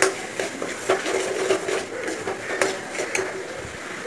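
Steel spoon stirring frying tomatoes and onions in a metal pan, clinking and scraping against the pan at irregular moments, over a soft sizzle.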